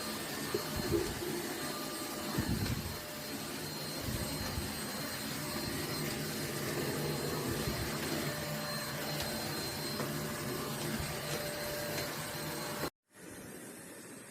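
Deerma DX115C handheld vacuum cleaner running steadily: an even rushing noise with a low motor hum and a faint high whine, with a few low bumps in the first few seconds. It stops abruptly near the end.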